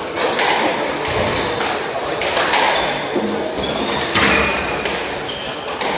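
Squash rally: the ball struck by rackets and hitting the walls in a run of sharp smacks, with players' shoes squeaking briefly on the wooden court floor.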